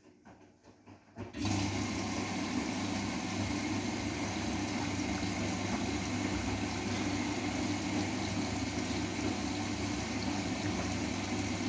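Bosch WGA25202TR washing machine taking in water: after a few faint clicks, the water comes on suddenly about a second in and rushes steadily into the machine over a constant low hum.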